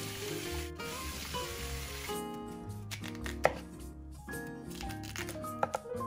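Tap water running over beef short ribs being rinsed by hand in a steel bowl, then a kitchen knife cutting through a Korean radish onto a wooden cutting board, with one sharp knock about three and a half seconds in and a few more near the end. Background music plays throughout.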